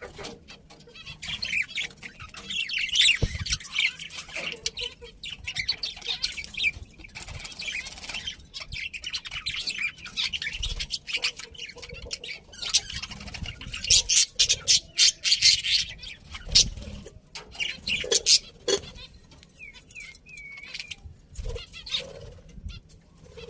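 Budgerigars chirping and chattering continuously, many quick high chirps and warbles overlapping, with a few short low thumps.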